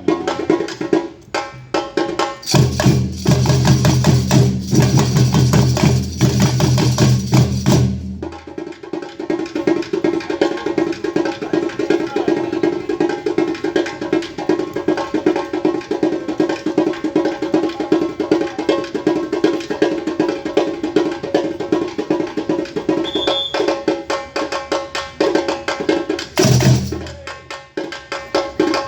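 Live band playing an instrumental passage at rehearsal: fast percussion over a held mid-pitched tone, with a loud low bass part coming in about two seconds in for several seconds and again briefly near the end.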